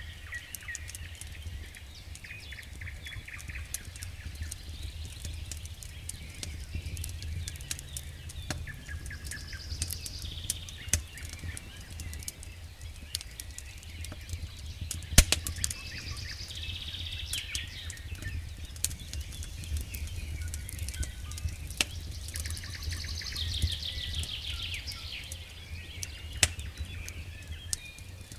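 Wood campfire crackling, with sharp pops scattered throughout, the loudest about halfway through. Birds sing trilling phrases in the background.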